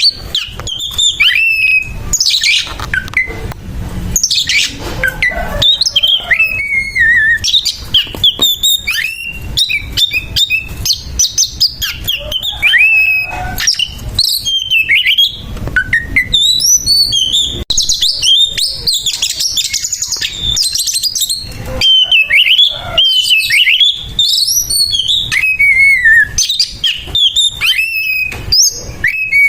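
Oriental magpie-robin (kacer) singing its loud, harsh fighting song: a fast, nearly unbroken run of varied whistles, slurred glides and chirps, sung as a challenge to a rival.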